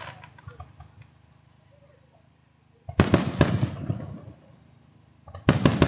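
Aerial firework shells bursting: after a few faint crackles, a quick cluster of several bangs about three seconds in trails off over a second, and another cluster of bangs follows near the end.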